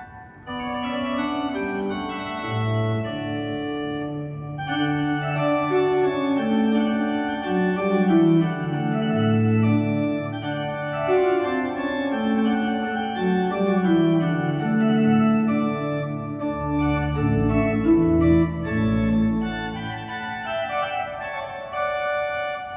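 Two-manual-and-pedal Thomas Jann pipe organ (2008) playing a lively melody with a moving bass line. About five seconds in the sound grows brighter and fuller as more stops come in. Deep pedal notes sound a little before the end.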